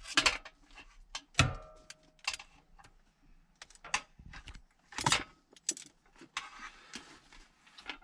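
Metal frame of a folding camp table being unfolded and set up: a string of sharp clacks and rattles from its legs and joints, the loudest a clank with a short metallic ring about a second and a half in.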